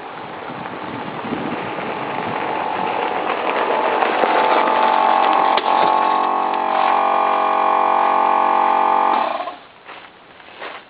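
Leslie RS5T five-chime locomotive air horn, freshly restored, being blown. It starts rough and noisy and grows louder, then about four seconds in the bells sound together as a loud, full, steady chord. The chord cuts off sharply about nine seconds in.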